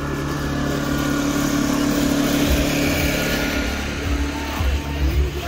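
The engine of a drivable art-car sculpture running with a steady hum, with uneven low rumbles in the second half.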